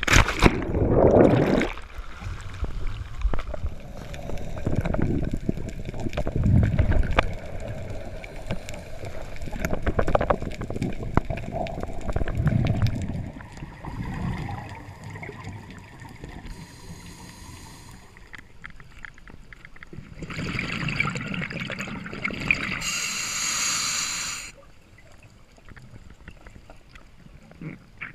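A scuba diver splashing into the sea, loud at the start, then muffled underwater sloshing and gurgling as the camera goes under. About twenty seconds in comes a few seconds of bubbling hiss from the diver's regulator exhaust.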